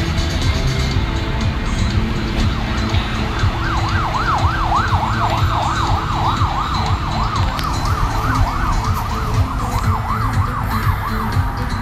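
A siren yelping, its pitch sweeping rapidly up and down a few times a second, starting a few seconds in and stopping shortly before the end, over background music with a steady beat.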